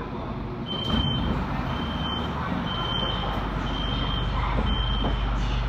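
Door-closing warning beeper of a Shenzhen Metro Line 11 CRRC Zhuzhou electric train sounding five short high beeps, about one a second, over the train's steady low hum.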